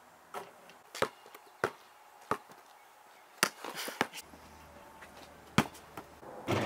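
Basketball bouncing on a concrete driveway: about eight sharp, separate bounces at uneven intervals.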